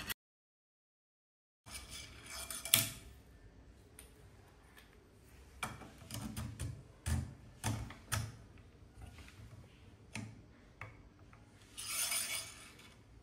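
Hands fitting a steel threaded lead screw into a 3D-printed bearing holder on a 3D printer frame, making scattered small clicks, knocks and rubbing of metal against plastic. Near the end comes a short stretch of scraping.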